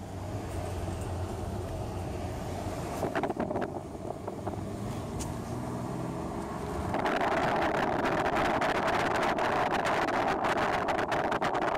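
Road noise heard from inside a moving car: a low engine hum whose pitch rises a few seconds in. About seven seconds in, the noise turns louder, a hiss with dense crackling, as of tyres on a rougher surface.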